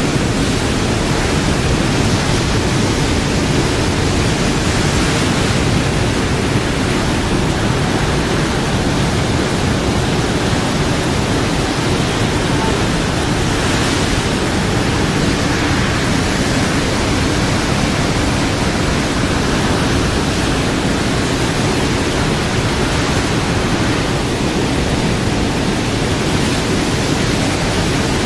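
Loud, steady rush of churning white water thrown up along the hull of the aircraft carrier USS Ronald Reagan as it makes a high-speed turn.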